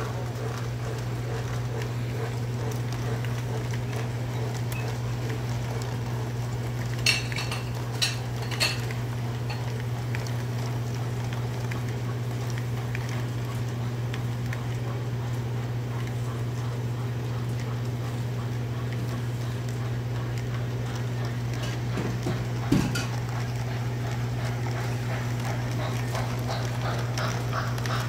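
O gauge model train running on tubular track: a steady low electric hum with a light metallic rattle of wheels on the rails. Three sharp clicks come about seven to nine seconds in, and one more near the end.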